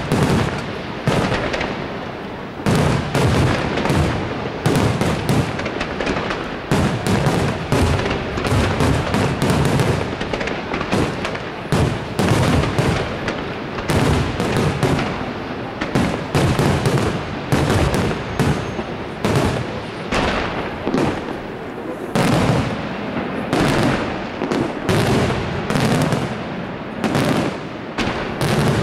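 Aerial firework shells from a La Rosa Artist Fireworks display bursting in a dense barrage: many overlapping bangs, a few a second, with no let-up.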